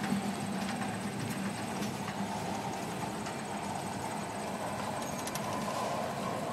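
Freight train cars, gondolas and boxcars, rolling slowly past on the rails: a steady, even sound of wheels running on track.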